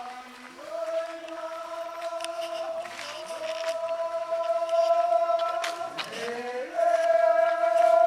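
A group of Rongmei men singing a traditional forest folk song in unison, chant-like, on long held notes. The pitch steps up about half a second in, breaks briefly near six seconds, and returns on a louder held note near the end.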